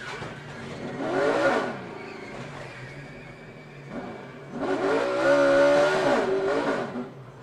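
NASCAR stock cars' V8 engines passing at speed, each pass rising and then falling in pitch: a short pass about a second in, then a louder, longer pass from about four and a half seconds in, over the steady drone of other cars on track.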